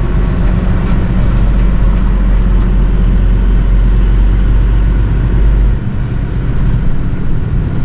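Lorry cab interior: the diesel engine drones deep and steady as the truck rolls along, with road and cab noise over it. About six seconds in, the deep drone drops away suddenly, leaving a lighter rumble.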